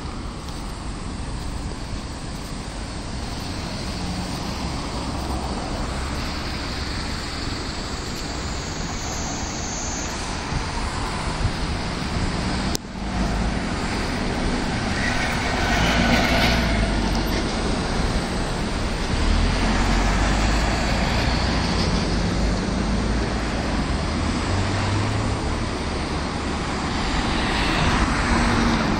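City road traffic: cars and taxis driving past on a busy street, the noise swelling several times as vehicles go by.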